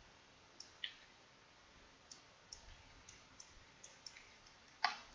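Computer mouse clicking: about ten light, scattered clicks, with one louder click near the end.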